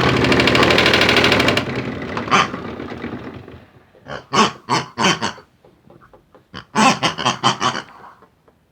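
The small motor of a modified Hotpoint toy washing machine runs fast with an even rattle, cuts off about a second and a half in, and winds down over the next two seconds. Two quick runs of short, sharp sounds follow.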